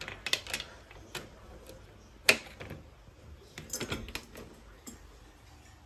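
Metal slide-bolt latch and bars of an EcoFlex dog crate door clicking and rattling as the crate is unlatched and pulled open. There is a run of sharp clicks, the loudest about two seconds in, then a cluster of rattles near four seconds.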